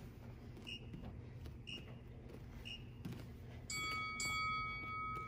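Workout interval timer beeping: three short beeps about a second apart, then a long, louder beep starting about two-thirds of the way through. This is the countdown that signals the start of the next timed exercise.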